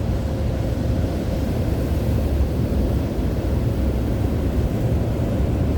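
Automatic car wash's large rotating brushes spinning and scrubbing over the car, heard from inside the cabin as a steady low rumble and swishing.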